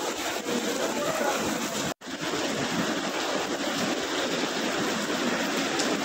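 Steady rushing noise of cyclone wind and rain, broken by a very short dropout about two seconds in.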